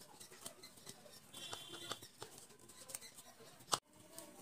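Hands patting and pressing soft cooked lentil paste flat on a steel plate: faint soft pats and small clicks, with one sharp click about three and a half seconds in.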